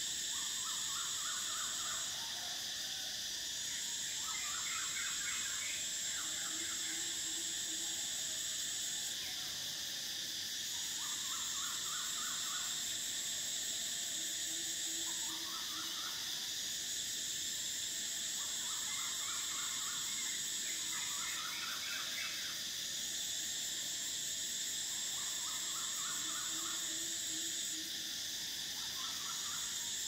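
Cicadas droning in tropical forest: a steady high buzz, with a second, higher buzz that cuts out for about a second roughly every six seconds. Other animals chirp in short rapid bursts every few seconds, and a brief low note sounds three times.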